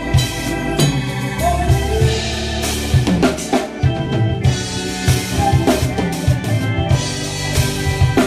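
Live church band music: an acoustic drum kit plays a busy groove of kick, snare and tom hits with cymbal crashes, over sustained keyboard chords.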